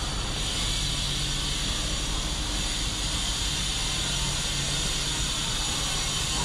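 Steady rushing hiss over a low, even hum, unchanging throughout, like large machinery or a vehicle running continuously.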